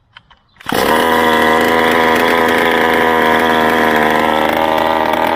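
Small petrol engine starting less than a second in, catching at once and then running steadily and loudly, after a few light clicks.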